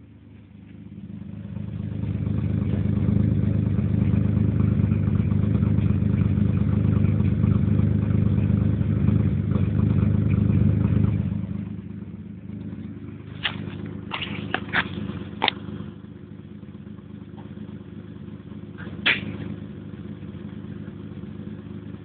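Freshly rebuilt Mazda KLZE 2.5-litre V6 running on its first start: it holds a steady high idle for about ten seconds, then drops to a lower, quieter idle. A few sharp snaps come in the second half.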